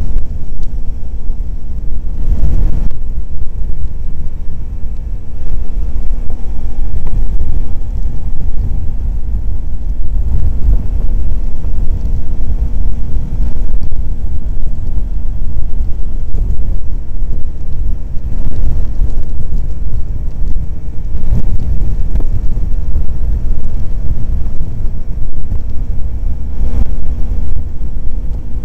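Loud, steady wind buffeting over the microphone of a motorcycle at cruising speed, with the Kawasaki Ninja 250's parallel-twin engine humming at a constant pitch underneath.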